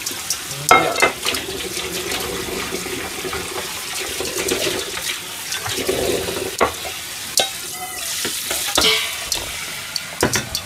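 Kitchen tap running into a stainless steel sink as freshly blanched squid is drained from a saucepan into a metal strainer and rinsed, with several sharp clinks of metal pan and strainer against the sink.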